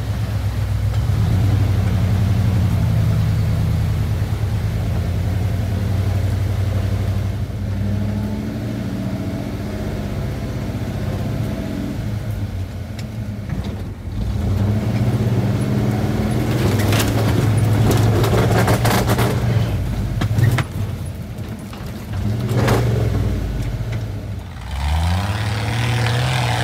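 1985 Ford Bronco's engine running under load while driving off road, its pitch rising and falling with the throttle and a sharp rev near the end. About two-thirds through, a few seconds of knocks and rushing noise sound over the engine.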